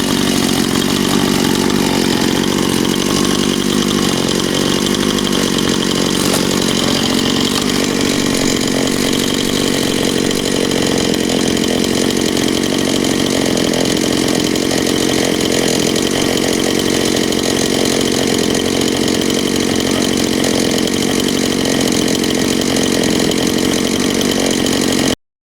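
Husqvarna Rancher 460 two-stroke chainsaw running steadily under load, ripping lengthwise through an oak log in a chainsaw mill. The sound cuts off suddenly near the end.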